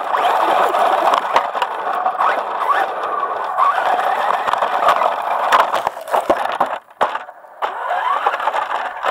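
Electric motor and drivetrain of a Traxxas Stampede 4x4 RC truck whining, the pitch rising and falling with the throttle, over rough grass with knocks and rattles from the chassis, heard from a camera mounted on the truck's cab. The sound drops away briefly about seven seconds in, then picks up again.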